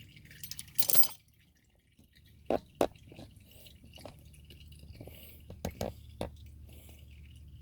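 Engine oil dripping into a drain pan from the opened drain and filter, with a few separate sharp clicks and knocks, and a short loud rush of noise about a second in.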